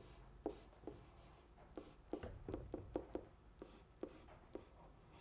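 A marker pen writing by hand on a sheet: a dozen or so short, faint strokes and taps at an uneven pace.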